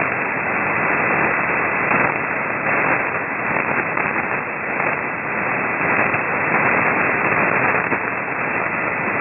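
Band noise from an SDRplay RSP1 shortwave receiver on an empty upper-sideband channel near 5.6 MHz: a steady hiss cut off above its 2.7 kHz filter, with a faint steady whistle. Occasional crackles of static come from distant thunderstorms.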